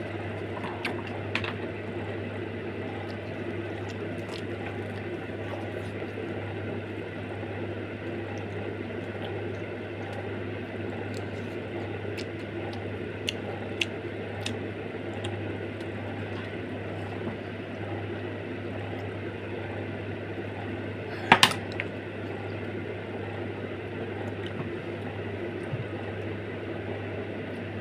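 Steady low hum with room noise, broken by a few faint clicks and one brief, louder noise about 21 seconds in.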